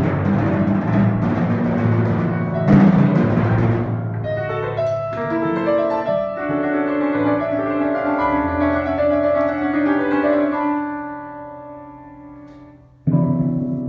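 Timpani and grand piano playing together. For the first few seconds the timpani play loud rolls and strokes. Then held piano chords ring over a low sustained note and slowly fade, until the timpani come back in loudly near the end.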